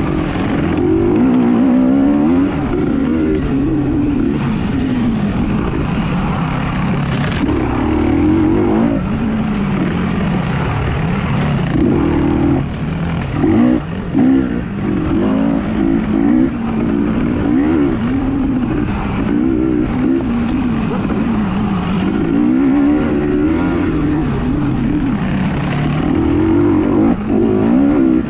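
Motocross dirt bike engine at race pace, its pitch climbing and falling every second or two as it revs through the gears. It backs off briefly a couple of times about halfway through.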